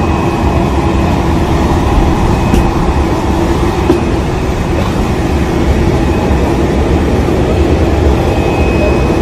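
A parked Boeing 747 jet airliner running on the apron: a steady, loud rumble with a constant hum and a faint high whine that comes and goes.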